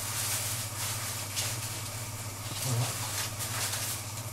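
Vegetable broth boiling in a stainless-steel pot with asparagus stalks and spinach leaves blanching in it, bubbling steadily over a constant low hum.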